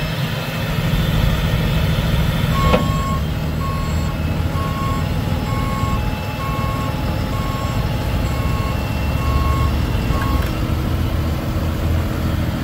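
Cummins 6.7-litre turbo diesel idling steadily. A few seconds in, a click, then an electronic warning beeper sounds one steady tone, a little over one beep a second, about ten times before it stops near the end.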